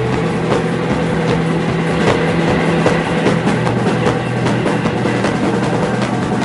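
Rock band playing loud and live, with a drum kit keeping a steady beat over bass and guitar.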